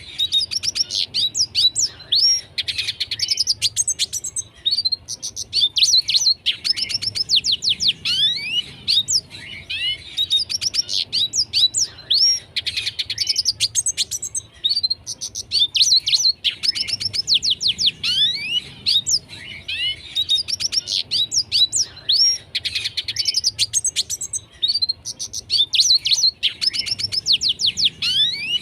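Red siskin singing busily: a fast, twittering song of high notes with quick rising and falling sweeps and rapid trills, delivered in phrases of a few seconds with short breaks between them.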